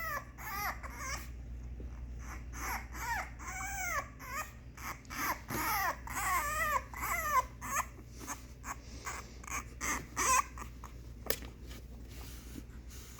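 Four-week-old French Bulldog puppies whining and crying, many short high cries that rise and fall in quick succession. The cries die down about ten seconds in, leaving only faint sounds.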